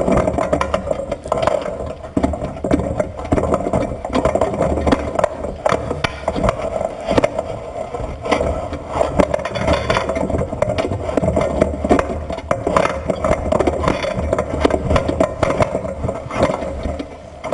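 Underwater recording of a tiger shark biting and worrying a neoprene-wrapped, bait-filled perforated drum on a pole: many knocks, scrapes and rattles over a steady mechanical hum.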